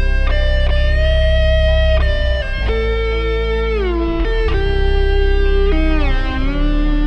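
Instrumental music: a sustained lead line, most likely electric guitar, holding long notes and sliding smoothly down between them, over a steady low bass.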